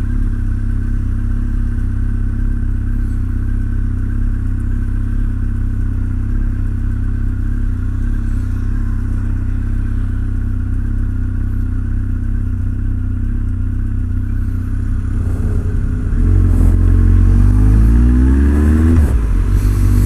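Honda CB1300's inline-four engine running steadily at low revs, then about 16 seconds in it gets louder and revs up, pitch rising, dropping briefly at a gear change and rising again as the motorcycle accelerates.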